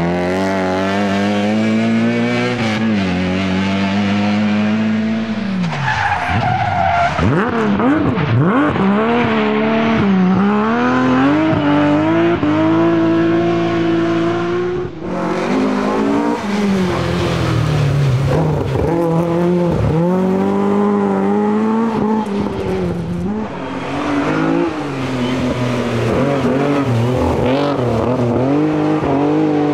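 Classic rally cars at full attack on a special stage, one after another: engines revving hard, then dropping back on lift-off and gear changes as each car goes through the corners. The sound shifts to a new car about six seconds in and again about halfway through.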